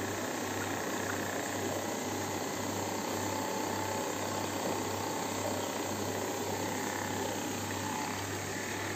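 Running aquarium equipment: a steady low hum that pulses slowly and evenly, under a steady hiss.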